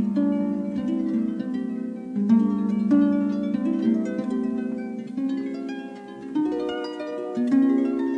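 Solo harp playing a melody over arpeggiated chords, each plucked note ringing on beneath the next.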